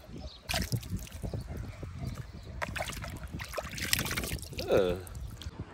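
Water trickling and splashing as pieces of raw meat are squeezed and lifted out of a plastic basin of water, the water streaming back into the basin. Near the end a short pitched call falls in pitch.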